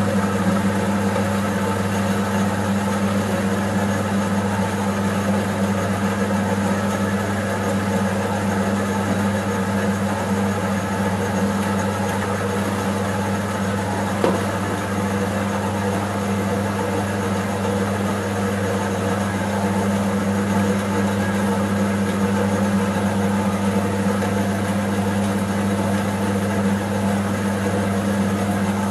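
Metal-cutting bandsaw running on its high speed setting, its blade cutting slowly down through a cast aluminium alloy car wheel rim: a steady motor hum with the cutting noise over it. One brief click about halfway through.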